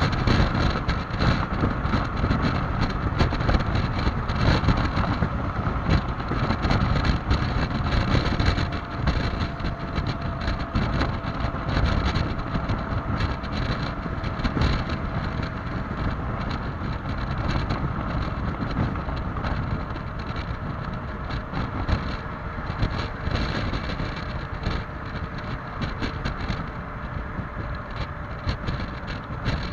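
Loud wind buffeting over the microphone on a stock Yamaha XMAX 300 scooter riding at speed, with a faint steady whine from the scooter underneath. The wind eases a little in the second half.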